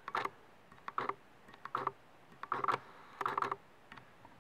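A screw-in stacked anti-aliasing lens filter being threaded onto a camera lens by hand: five short bursts of clicking and gritty rasping, about one every 0.8 s, as the filter is turned.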